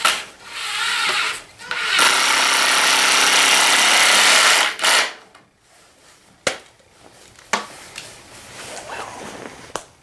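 Cordless drill driving a screw into a pine board, in bursts: a short one, a longer one, then a steady run of about two and a half seconds that stops suddenly. A few light knocks follow.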